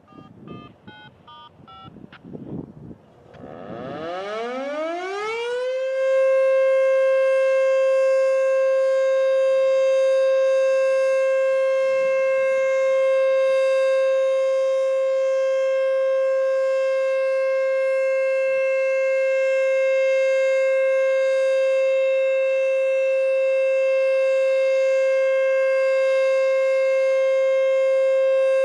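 ACA Screamer S-2 outdoor warning siren winding up: a few faint short beeps, then a rising wail that climbs for about three seconds and settles into a loud, steady single-pitched tone that holds without wavering.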